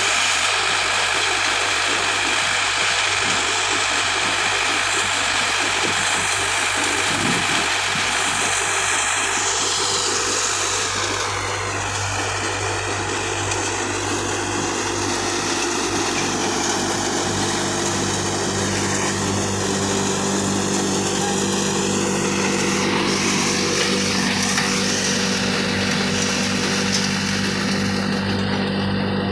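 Tractor-powered cutter thresher running steadily under load, its threshing drum and fans making a constant mechanical hum and hiss over the tractor's engine. A deeper hum grows stronger about halfway through.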